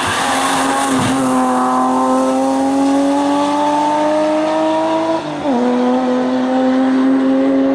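BMW M3 rally car engine under hard acceleration: the pitch climbs steadily, drops sharply about five seconds in as it shifts up a gear, then climbs again.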